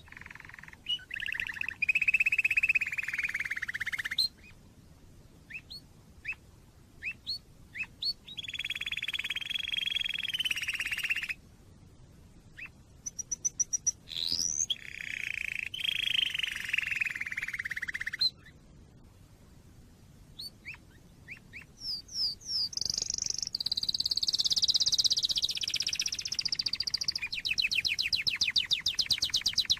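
Domestic canary singing: rolling trills held for a few seconds each, runs of short chips and a quick upward sweep, with brief pauses between phrases. Near the end comes a long, loud, high rapid trill.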